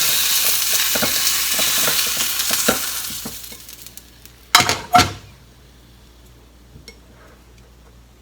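Chicken wing pieces sizzling in oil in a frying pan, with light clicks of a utensil against the pan; the sizzle dies away over the first few seconds, the heat having just been turned off. A little later come two sharp knocks about half a second apart.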